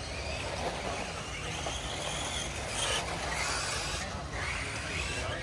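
Electric radio-controlled buggies racing on a dirt track, their motors whining up and down in pitch over a steady hiss of outdoor background noise.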